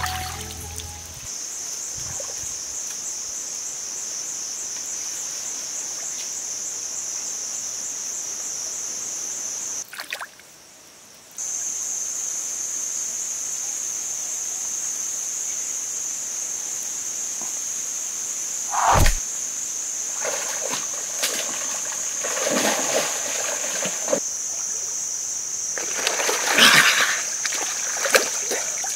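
Pond water splashing and sloshing as a man wades through lily pads and wrestles a thrashing snakehead fish: a sharp single splash about two-thirds of the way through, then heavier splashing near the end. A steady high-pitched hiss runs underneath.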